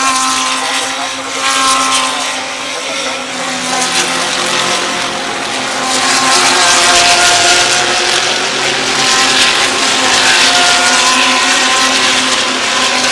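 GT3 race cars at full throttle passing at speed, several engine notes overlapping and rising and falling in pitch, loudest about halfway through and again near the end.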